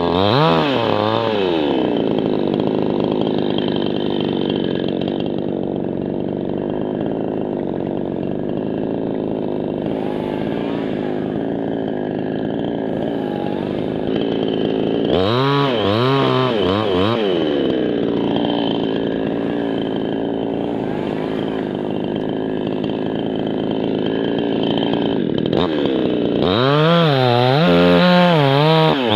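Two-stroke chainsaw running continuously. Its engine pitch rises and falls rapidly in three spells: right at the start, about halfway through, and again near the end. It holds steadier in between.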